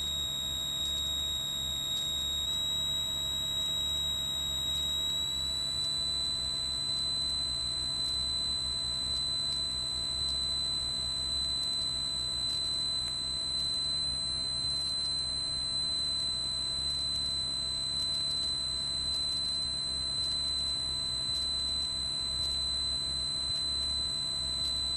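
Steady high-pitched electrical whine on the Cessna 182's intercom audio, over a low drone from the engine. The whine steps up slightly in pitch twice in the first few seconds.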